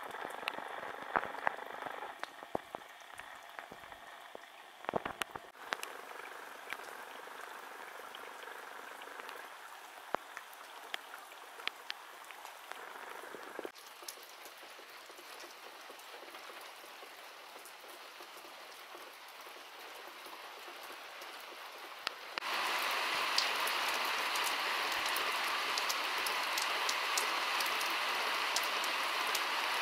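Rain falling onto puddles and wet ground, a steady hiss with scattered ticks of single drops. Near the end the rain turns louder and denser.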